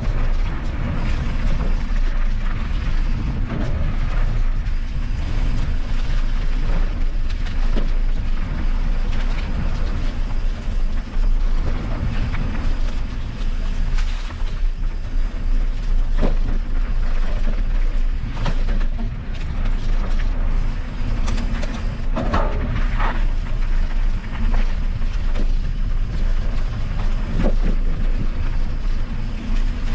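Mountain bike riding over rough dirt trail: steady wind rumble on the camera microphone with frequent short rattles and knocks from the bike over bumps.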